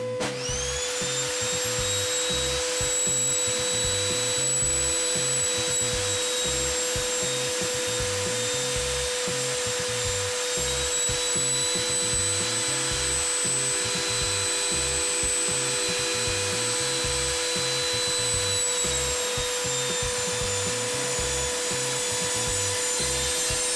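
Evolution Rage 5-S table saw starting up, its motor whine rising in pitch and then running steadily. Near the end the blade crosscuts a block of wood fed on the sliding carriage, and the pitch dips slightly under the load.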